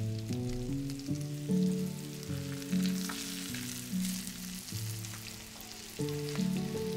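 Flour-dredged chicken breasts sizzling in olive oil and butter in a frying pan, with a fine crackle. Background music of held notes, changing about twice a second, plays underneath.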